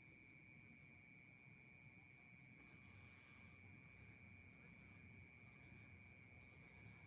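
Faint night insects, crickets among them, chirping in rapid pulsed trills over a steady high-pitched drone.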